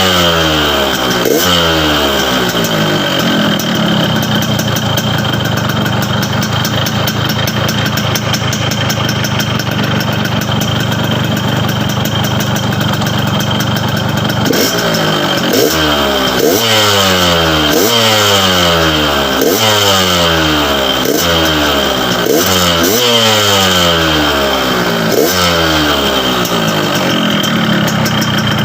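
Yamaha RX-King's single-cylinder two-stroke engine running through its reworked, gutted exhaust, which is tuned for a crisp, growling note. It is blipped a couple of times at the start, idles steadily for about ten seconds, then is revved in about seven quick blips before settling back to idle.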